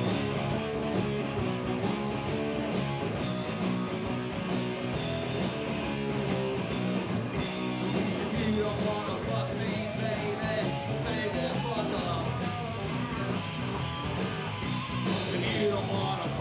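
A live punk rock band playing loudly: distorted electric guitar, bass guitar and a drum kit keeping a steady beat, with a singer's vocals over the top.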